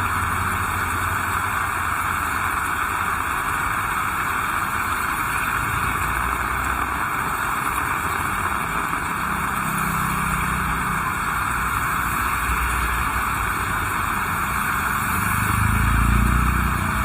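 Heavy rain falling steadily, a dense even hiss. A passing vehicle's low rumble swells near the end, the loudest moment.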